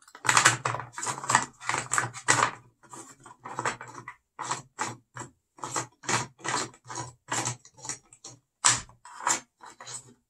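Ratcheting clicks from the chain tensioner dial of a LiTHELi 40V 14-inch cordless chainsaw as it is turned by hand to tension the chain. The clicks come thick and fast for the first couple of seconds, then slow to about two or three a second.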